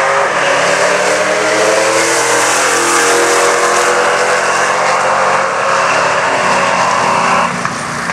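A Ford Mustang and a Jeep pickup accelerating hard down a drag strip side by side. Their engines rise in pitch and drop back at each gear change. The sound falls away abruptly near the end.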